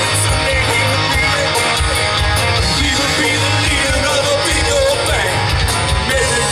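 Live rock and roll band playing loudly, with electric guitar, bass and drums keeping a steady beat and a voice singing over them.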